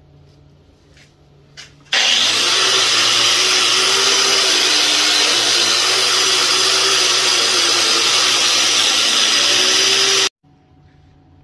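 Angle grinder with a spinning wheel running against a forged steel rod, its motor pitch wavering as it is pressed on. It starts about two seconds in and cuts off suddenly near the end.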